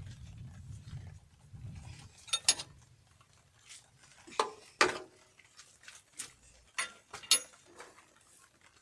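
Scattered sharp clicks and knocks of hand tools on metal hydraulic fittings, as a pressure gauge union is worked on the pump. A low rumble runs through the first two seconds.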